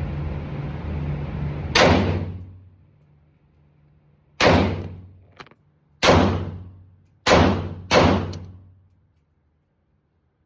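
Five gunshots, each a sharp crack with a short echoing tail, one to two and a half seconds apart, the last two in quick succession.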